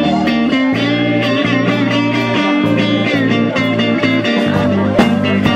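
Rock music: an electric guitar lead with bent, wavering notes over sustained bass notes and drum hits.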